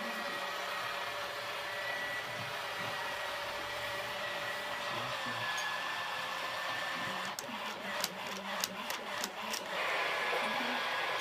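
A steady hiss with faint held tones, then, about seven seconds in, a quick run of about eight clicks from the plastic buttons and lever of a ride-on toy's steering-wheel panel being pressed.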